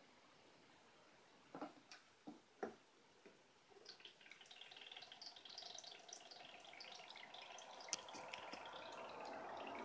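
A few light knocks as the bottle and straw are set in place, then, from about four seconds in, water dripping and trickling through a homemade bottle-and-straw aquarium aerator as it starts to run, slowly growing louder.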